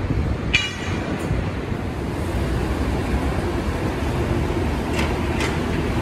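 Steady low rumble of busy city street and flyover traffic. There is a short high-pitched squeal about half a second in and two brief sharp high sounds near the end.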